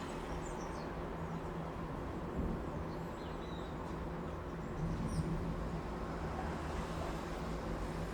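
Steady city traffic rumble with a few brief high bird chirps, around half a second, three seconds and five seconds in.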